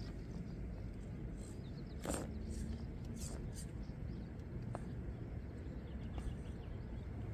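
Steady low outdoor background rumble with scattered faint clicks, a brief scrape about two seconds in, and a few short high chirps a little after three seconds.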